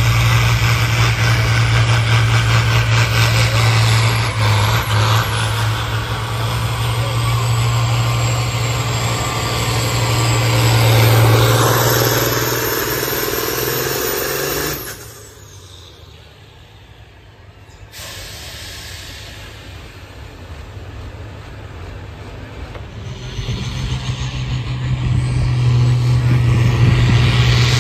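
New Holland TM120 tractor's diesel engine running hard under full load as it pulls a sled down the track. The sound drops away sharply about halfway through and stays much quieter for several seconds, then the engine builds back up to full load near the end.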